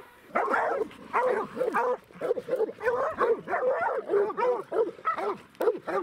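Several hounds barking and bawling at a treed mountain lion, a fast, overlapping run of barks that starts just after the beginning and keeps going.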